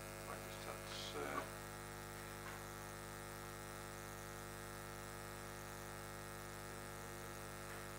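Low, steady electrical mains hum with a ladder of overtones, from the hall's microphone and sound system. A few faint short sounds break through in the first second and a half.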